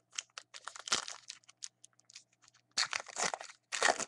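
Wrapper of a baseball card pack crinkling and tearing as it is ripped open, in quick sharp crackles that are loudest about a second in and again in the last second or so.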